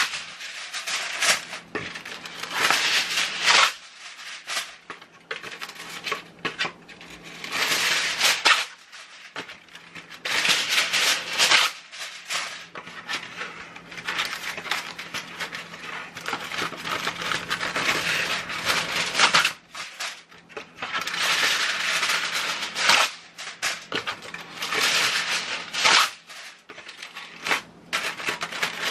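Aluminium foil being pulled off a roll and torn into sheets, over and over, with bursts of crinkling and rustling between short pauses.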